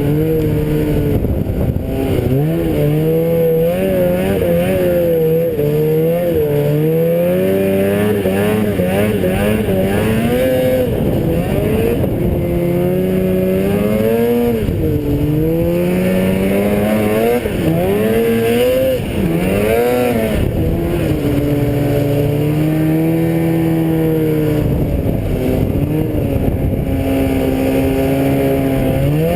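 Vehicle engine being driven, its pitch rising and falling repeatedly as the revs go up and down.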